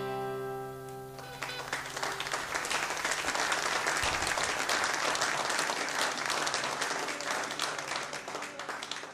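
The final acoustic guitar chord of a song ringing out and fading, then an audience breaking into applause about a second in, clapping steadily.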